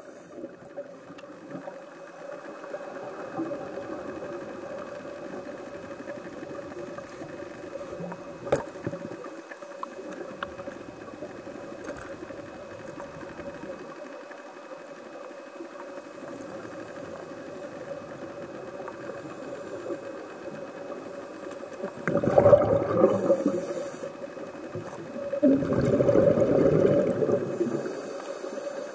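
Underwater scuba dive sound: a steady low hiss with a faint constant hum, broken twice near the end by the loud bubbling of a diver's exhaled breath through the regulator.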